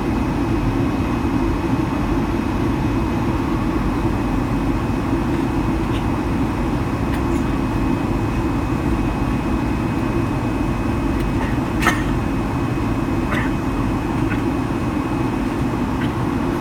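Steady cabin noise of a Boeing 757-200 on approach: a dense low rumble of engines and airflow with a faint steady high whine. A single sharp click about twelve seconds in, then a couple of fainter ticks.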